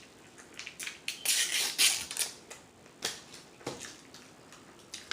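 Close-miked eating sounds: a person chewing and smacking their lips over fast food, with scattered clicks and a louder, crackly stretch between about one and two seconds in.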